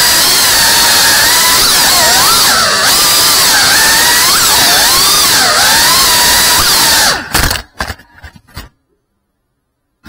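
FPV quadcopter's brushless motors and propellers, a loud whine that rises and falls in pitch with the throttle. About seven seconds in the sound stutters and cuts out, then goes silent.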